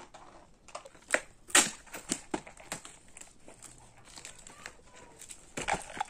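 Cardboard toy box being opened by hand: irregular crinkling and scraping of the packaging flaps, with a few sharper cracks, the loudest about a second and a half in.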